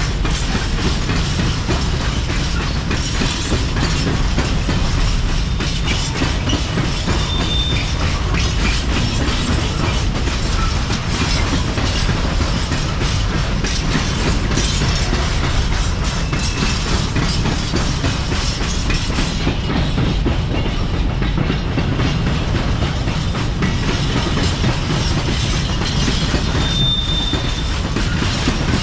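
Freight train of covered hopper wagons rolling steadily past, the wheels clattering over the rail joints in a continuous heavy rumble. A short high squeal rings out twice, once near the start and once near the end.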